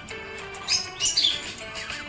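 Budgerigar chirping, with a few sharp chirps close together about a second in, over background music.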